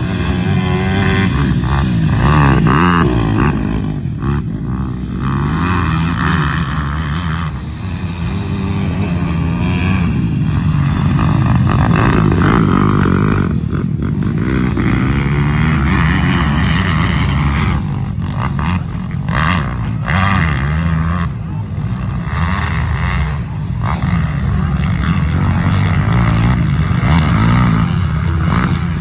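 Several pit bike engines racing around a dirt track, revving up and down and overlapping as the bikes accelerate, back off and jump.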